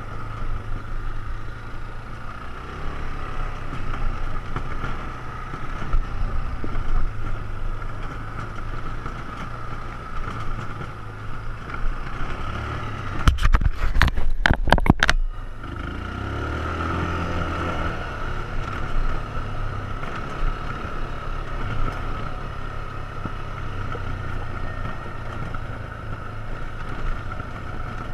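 ATV engine running steadily while riding. About halfway through there are a couple of seconds of loud knocking and rattling, then the engine carries on.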